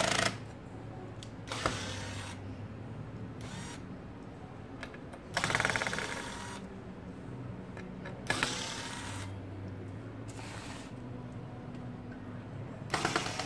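Corded electric screwdriver whirring in short bursts, about half a second to a second each, some six or seven times, as it drives screws into the sheet-metal chassis of a car stereo head unit. A steady low hum runs underneath.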